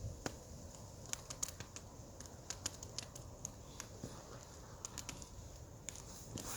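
Wood fire crackling, with scattered sharp pops and snaps at irregular intervals over a low steady rumble.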